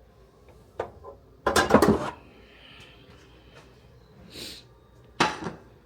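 Kitchen clatter of dishes and pans being handled: a few light knocks, a loud clatter of several strikes about a second and a half in, and another knock near the end.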